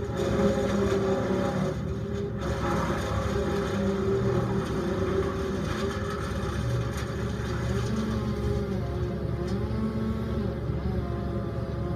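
Towable brush chipper's engine running steadily while branches are fed in, its pitch sagging and recovering a few times in the second half.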